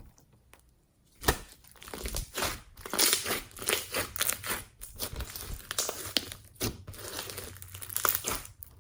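Glossy slime mixed with floam beads being squeezed and kneaded by hand: sticky crackling and crunchy popping. It is quiet for about a second, then a sharp pop, then dense irregular crackles.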